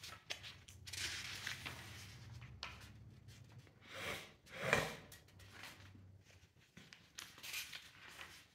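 A few soft rustles and breaths in a quiet small room, the loudest about halfway through.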